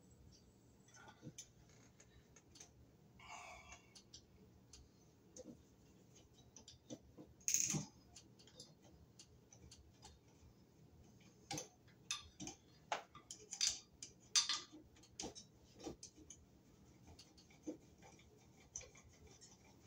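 Faint, irregular clicks and scrapes of a hand screwdriver turning the screws of a ceiling fan mounting bracket into a metal ceiling electrical box. The clicks are sharpest about seven seconds in and come in a quick run a little past the middle.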